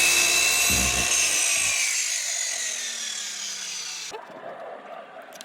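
Electric power saw winding down after a cut in skirting board: its whine falls slowly in pitch and fades, with a low thud about a second in, then stops about four seconds in.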